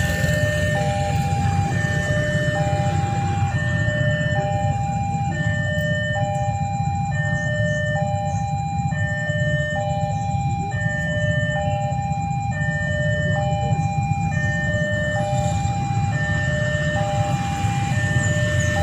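Railway level-crossing warning alarm sounding its electronic two-tone chime, alternating high and low about once a second, over a steady low rumble.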